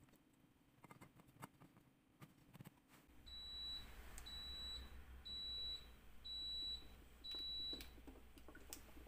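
Five short, high electronic beeps about a second apart from a stove's control panel as a burner is set, with a low steady hum beginning at the same moment. Before the beeps come faint handling clicks, and near the end a faint trickle of oil being poured into a stainless steel saucepan.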